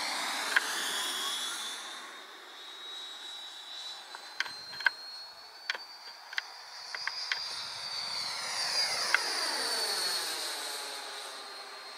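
Electric ducted-fan Viperjet RC model jet flying by with a high-pitched fan whine. It swells on a low pass at the start, fades, then swells again with a whooshing sweep as the jet passes about nine seconds in. Several sharp clicks come in the middle.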